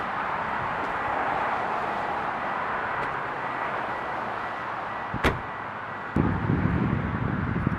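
A Toyota Corolla's trunk lid is shut with a single sharp slam about five seconds in, over a steady hiss. Near the end a low rumble of wind on the microphone comes in.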